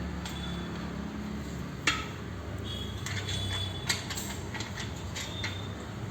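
Steel power-rack frame parts and their bolts clinking and knocking as the connecting leg is fitted to the base legs, with two sharper metal knocks about two seconds apart and short high ringing after some of the clinks.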